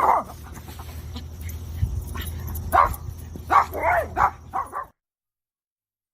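A dog making a run of short calls over a low steady hum, a few of them rising and falling in pitch, loudest in a cluster about three to four seconds in. The sound then cuts off to dead silence about five seconds in.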